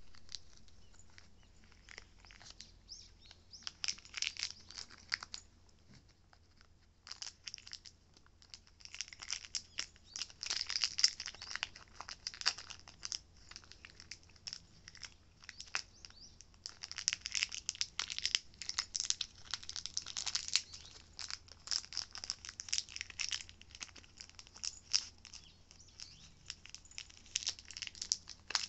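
Foil packet of matatabi (silvervine) crinkling and crackling irregularly as a cat bites and licks at it, with a short lull about six seconds in.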